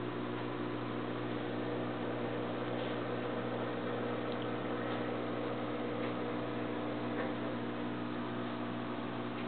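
Aquarium filter running: a steady hum with several held tones under an even hiss of water, with a few faint clicks.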